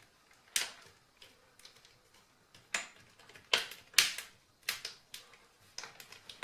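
Plastic screen-surround clips of an HP Envy m6 laptop snapping into place on the lid as they are pressed in: about eight sharp clicks at uneven spacing, the loudest a little after halfway.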